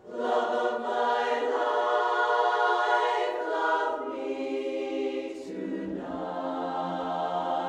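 Women's barbershop chorus singing a cappella in close four-part harmony. The singing starts at once on a full chord and moves through a series of held chords.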